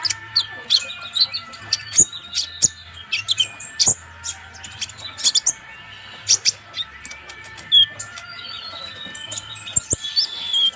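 Purple-throated sunbird (Leptocoma sperata) singing energetically: a fast, busy run of sharp, high chirps and short trills with brief gaps.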